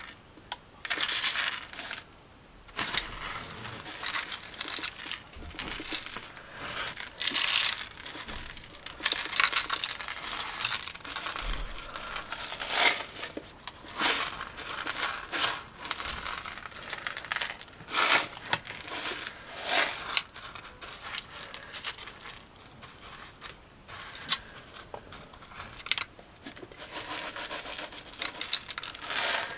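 Fine model gravel being shaken out of a jar and scattered onto a board, with hands pushing it around: an irregular rattling of many small stones, coming in short bursts.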